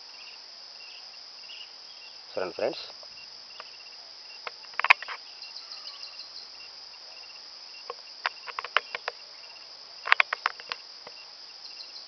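Insects, crickets, keep up a steady high-pitched drone. Scattered sharp clicks and crackles come in small clusters, and one short voice-like sound comes a little over two seconds in.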